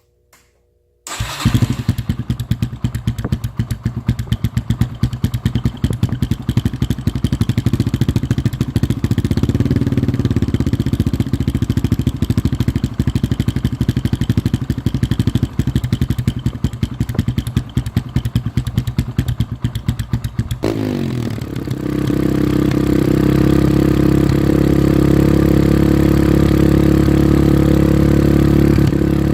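2009 Yamaha TTR125's single-cylinder four-stroke engine breathing through a Dubach Racing Development full stainless steel exhaust, warm-started about a second in and idling with a rapid, even beat. About twenty seconds in it revs up quickly and holds a steady higher speed.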